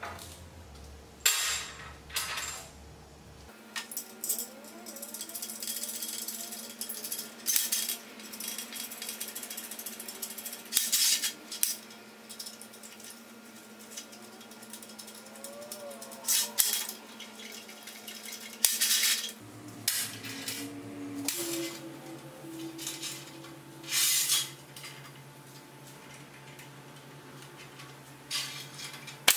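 Steel parts and bolts clinking and knocking on a steel workbench as bolts and feet are fitted to the legs of a scissor-jack stand. Quiet background music with slow, held bass notes runs underneath.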